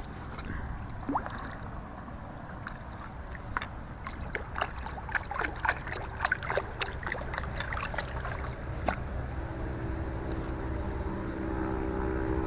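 Water splashing and dripping with many small knocks and ticks around a kayak, thickest in the middle, over a steady low rumble. Background music comes in near the end.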